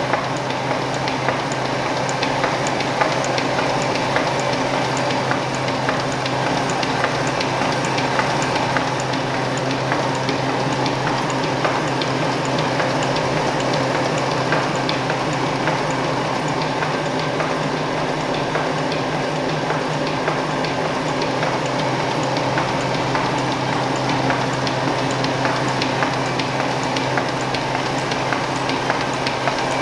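Pocket-envelope making machine with a peel-and-seal tape unit running steadily: a dense mechanical clatter of rollers and folding parts over a steady low hum, with sharp ticks repeating at an even pace.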